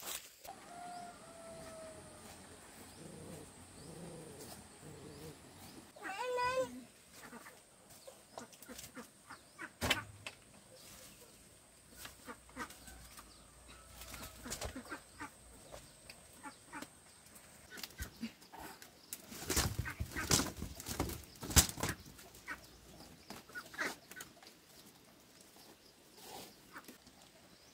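Two short animal calls: a falling one about a second in and a wavering, warbling one around six seconds in. Scattered knocks and clatter run through the rest, with a dense cluster about twenty seconds in.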